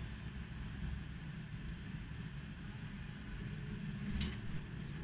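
Steady city street traffic noise, a low rumble of passing vehicles, with a brief hiss about four seconds in.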